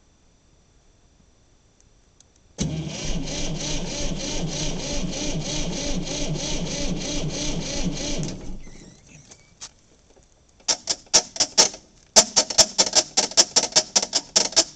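Starter motor cranking the cold diesel engine of a 1960 Massey Ferguson 200, a steady beat of about four compression strokes a second for some six seconds without catching. After a pause come a few short bursts, then a second crank of about two seconds that also fails to start it: a failed cold start of a diesel despite glow-plug heating.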